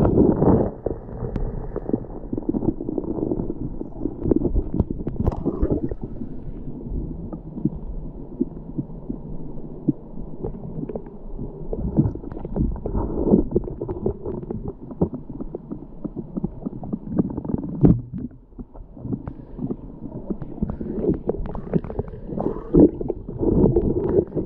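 Muffled, low gurgling and bubbling of a small stream's falling water, heard through an underwater camera, with irregular knocks and surges.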